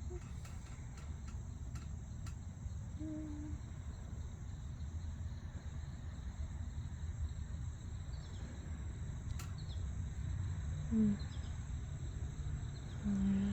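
Outdoor background noise: a steady low rumble with a few faint high chirps and soft clicks.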